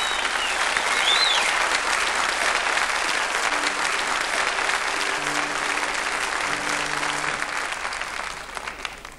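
Audience applauding, steady and loud, then dying away near the end. A whistle sounds briefly about a second in, and a few low held notes sound faintly underneath in the middle.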